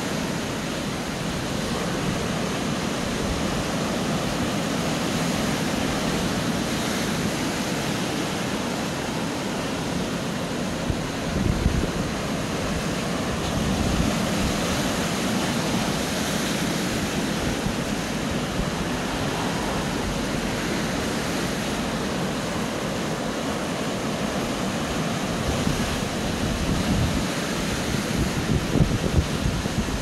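Sea waves breaking and washing over rocks along a rocky shore: a steady rush of surf, with louder surges about eleven seconds in and again near the end.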